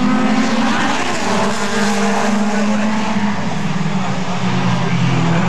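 A pack of Super 4 late model stock cars running hard together as they accelerate away at the green flag. Several engine notes overlap, with a rise in pitch about a second in.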